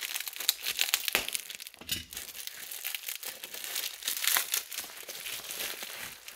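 Plastic bubble wrap crinkling and crackling as it is cut and pulled open by hand, an irregular run of sharp crackles.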